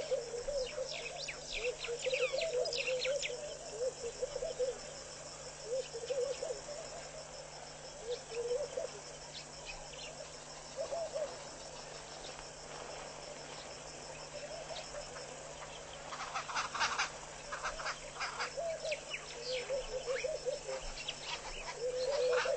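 A steady insect chorus with short low wavering calls repeating every second or two. Bursts of scratchy rustling come about 1 to 3 seconds in and again from about 16 seconds on: a pied kingfisher's feathers rubbing against the microphone as it preens.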